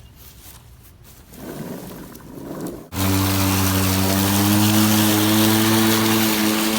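Cordless electric lawn mower's brushless motor and blade running, a loud steady hum that starts suddenly about three seconds in, after a quieter stretch.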